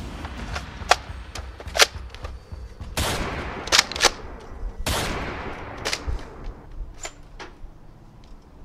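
An irregular series of sharp gunshot-like pops, about ten in all. The two loudest, about 3 and 5 seconds in, carry a short rushing tail. A steady low rumble runs beneath.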